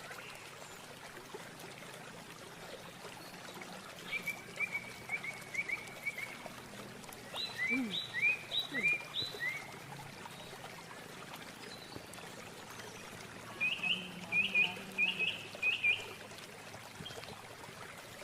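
A songbird singing three bursts of quick repeated short notes, over a steady rush of running water.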